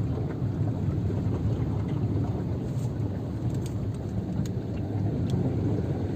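Steady low rumble of a car driving through flooded road in the rain, with water washing around it and a few scattered raindrop ticks.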